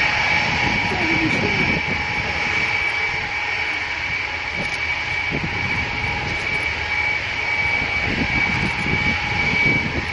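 Ilyushin Il-76TD's four Soloviev D-30KP turbofans running at low taxi power, a steady high whine with a second, lower tone over a constant rumble.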